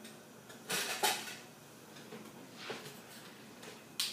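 Kitchen utensils being handled: a few brief clatters and scrapes, the loudest about a second in, and a sharp click near the end.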